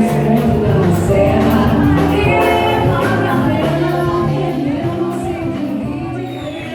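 Live band music with singing, voices holding sustained notes over a steady bass line, in a large hall.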